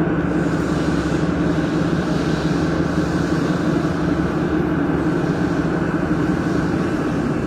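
Handheld laser welding machine's water cooling unit running: a steady, even mechanical hum.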